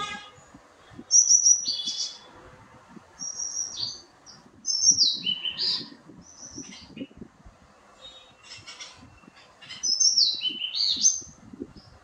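Songbird calling in loud, clear whistled phrases, each a quick run of notes that steps down in pitch; four phrases with pauses between them.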